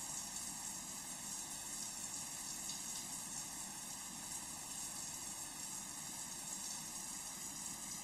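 A running shower: a steady hiss of water spray with no breaks.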